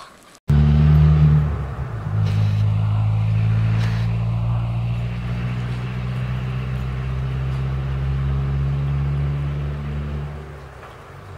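A steady low engine hum, like a motor idling close by. It starts abruptly about half a second in, settles slightly lower in pitch a second later, and fades near the end.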